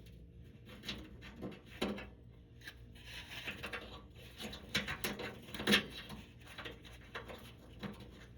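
Scattered plastic clicks and knocks from working a tab on the front cover of a Sears Coldspot dehumidifier, the loudest knock about six seconds in, over the steady low hum of the running dehumidifier.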